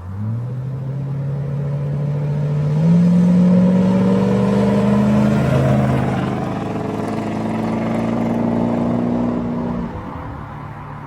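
Car engine revving under acceleration, its pitch climbing in steps and glides, loudest a few seconds in and fading away near the end.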